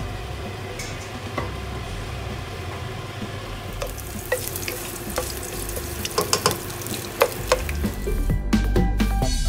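Chopped ginger and garlic sizzling in hot oil in a nonstick pot, stirred with a wooden spoon. From about four seconds in, the spoon knocks and scrapes against the pan in a run of sharp clicks.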